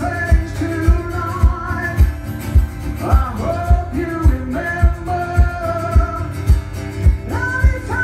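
A man singing live into a microphone while strumming a jumbo acoustic guitar. A steady low thump keeps time about twice a second under the sung phrases.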